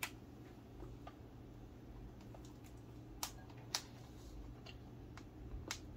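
A handful of sharp, isolated clicks and crinkles from a bag of cornmeal being handled and tipped into a small metal measuring cup, over a low steady hum.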